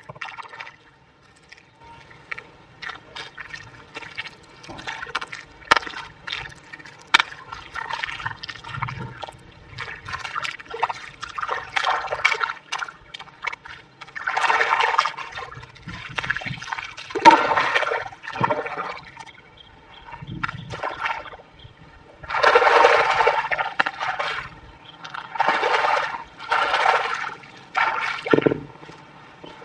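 Wet mud and water being worked by hand: squelching, slapping and splashing in irregular bursts that come longer and louder in the second half.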